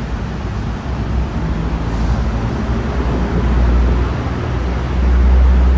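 Steady low rumble of road traffic, swelling twice, the second time near the end.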